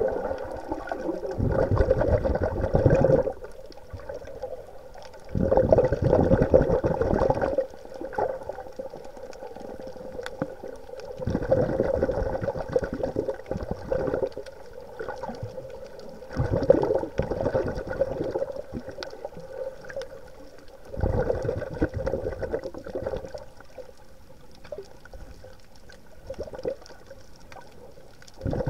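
Underwater sound of a swimmer breathing: five rushes of breath and bubbles, each lasting one to two seconds and coming a few seconds apart, over a steady wash of water.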